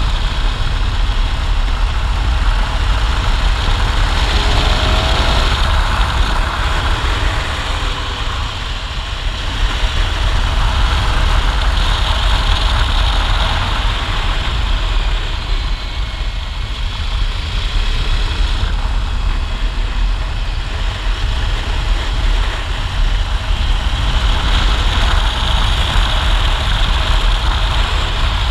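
Adventure motorcycle riding at road speed: a steady rush of wind over the microphone with the engine running underneath.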